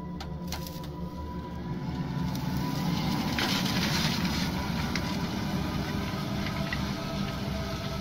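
New Holland T7.235 tractor's six-cylinder diesel running under heavy load as it pulls a five-furrow Lemken reversible plough through hard ground. The sound swells as the tractor passes closest, about three to four seconds in, then eases as it pulls away.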